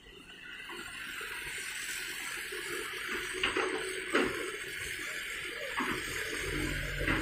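Hitachi hydraulic excavator loading soil into a dump truck: earth pours from the bucket into the truck's bed with a few knocks, the loudest about four seconds in, over a steady rushing noise. A low engine hum comes in near the end.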